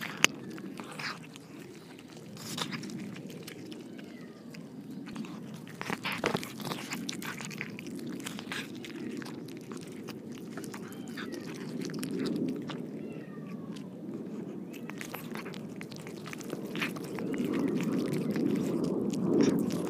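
Cats chewing and eating cooked carp close to a microphone clipped to their plastic bowl: irregular wet smacks, licks and small crunches.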